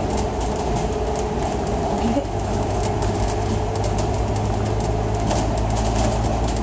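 A Citybus bus in motion, heard from inside the cabin: a steady low engine drone and road noise, with frequent light clicking rattles from the bodywork and fittings.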